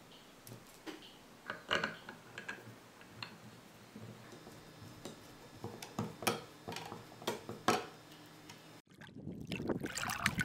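Scattered clicks and light knocks as the base of a digital measuring board is fitted back on and its parts are handled. Near the end, after a brief break, a growing sound of running water.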